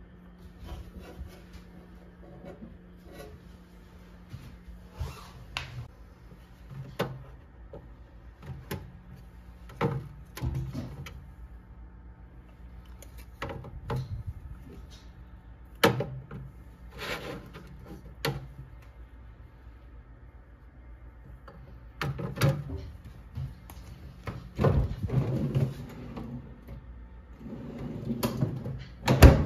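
Plastic refrigerator fittings being handled: scattered clicks and knocks from the door, the plastic door bins and the condiment bottles standing in them. Near the end comes a longer sliding rumble as the freezer drawer is pulled out, then a sharp knock. A steady low hum runs underneath.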